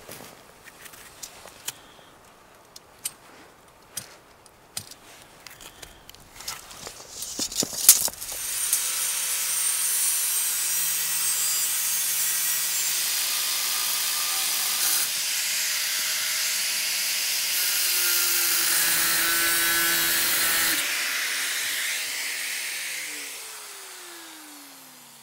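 Light clicks and taps of metal pipes and a tape measure being handled, then an electric angle grinder's cutting disc cutting through a metal pipe: a loud steady hiss starting about eight seconds in and lasting over ten seconds. Near the end the grinder is switched off and the disc winds down in falling pitch.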